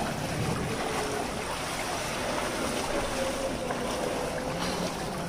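Floodwater sloshing and splashing around people wading and pushing an inflatable rescue boat, with wind buffeting the microphone.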